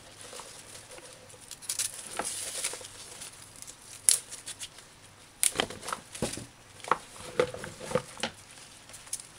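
Thick fresh callaloo stems snapped and the leafy bunch rustled by hand: irregular crisp snaps amid leafy rustling, coming thickest in the second half.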